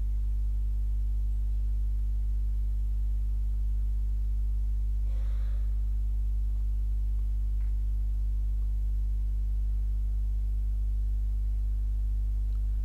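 Steady low electrical hum with a stack of evenly spaced overtones above it, typical of mains hum picked up by the recording microphone. It holds unchanged throughout, with only a faint brief rustle about five seconds in.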